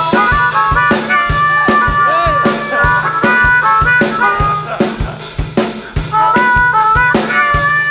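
Live blues-rock band: an amplified harmonica plays held and bending notes over a drum kit and bass with a steady kick-drum beat.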